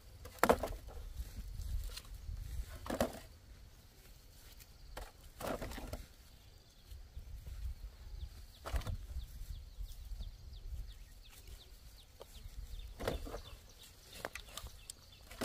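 Brief rustling scuffs, about five of them spread a few seconds apart, over a steady low rumble like wind on the microphone.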